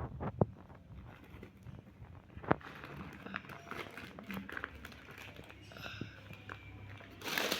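Packaging crinkling and rustling as a parcel is handled and opened, with a few sharp taps and knocks early on and about two and a half seconds in. The crinkling grows denser and louder near the end.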